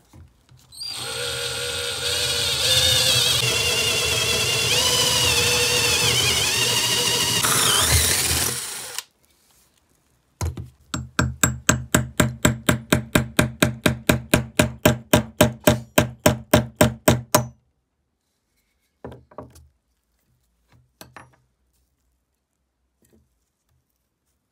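An electric drill with a long twist bit runs loud and steady for about eight seconds, its whine wavering as it bores out the old handle jammed in a small double-bladed axe head. Then a hammer strikes a steel punch on the axe head in quick ringing blows, about four a second for some seven seconds, knocking out the rivets that hold its side plates, followed by a few lighter knocks.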